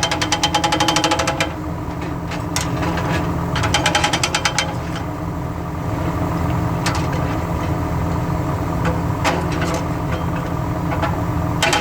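Excavator-mounted hydraulic breaker hammering rapidly, stopping after about a second and a half, with one short burst about four seconds in. In between, the excavator's engine runs with scattered single knocks, and the hammering starts again near the end.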